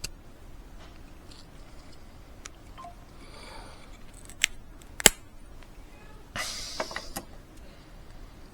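Sharp plastic clicks and scraping as a small plastic key-fob remote is prised open to free its circuit board: two clicks about half a second apart near the middle, the second the loudest, then a short scrape.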